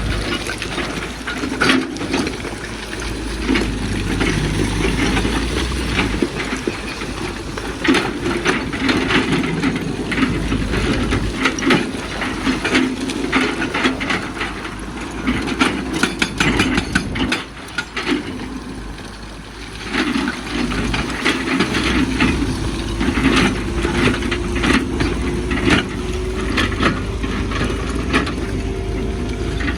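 Excavator's diesel engine running under load while its bucket digs into hard stone, with repeated knocks and clatter of rock against steel. The engine pitch rises slightly over the last few seconds.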